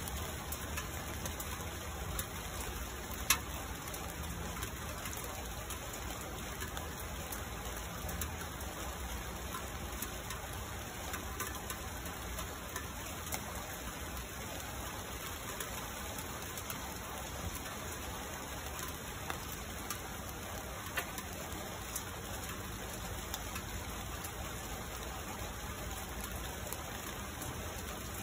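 Steady rain falling on leaves and a stone ledge, with scattered close drops tapping, and one sharper tap about three seconds in.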